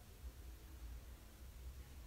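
Near silence: quiet room tone with a faint, steady low hum.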